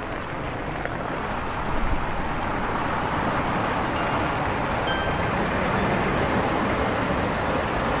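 Mercedes-Benz tour coach approaching and pulling up to the kerb. Its engine and road noise are steady and grow gradually louder from about two seconds in.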